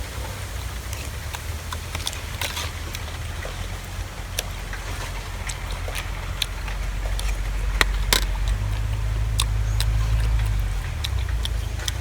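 Wind buffeting the microphone as a low rumble that swells about two-thirds of the way through, with scattered light clicks and taps.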